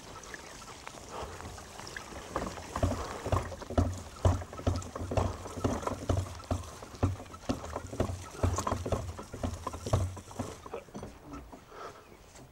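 Horse-drawn box cart pulled by a fjord horse, its cart and harness giving irregular knocks and rattles over dull thuds. It starts about two seconds in and dies away near the end.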